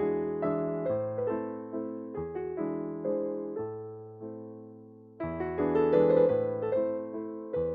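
Background piano music: gentle notes struck one after another, each fading away, swelling louder about five seconds in.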